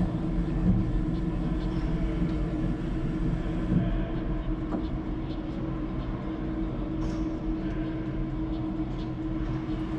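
Steady machine hum with a low rumble and a constant mid-pitched tone, with a few faint clicks over it.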